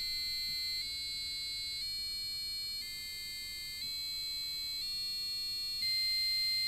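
PS1240 piezo buzzer driven by an Arduino Uno with the tone command, stepping through a musical scale: steady electronic notes, each held about a second before the pitch changes. One note near the end is a little louder.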